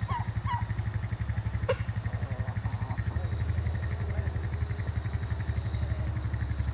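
Farm vehicle engine running steadily with a fast, even low pulse. A couple of short high chirps come in about half a second in.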